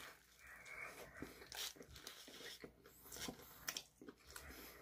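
Faint sounds of a bite into a shawarma wrap and then chewing, with small irregular mouth clicks.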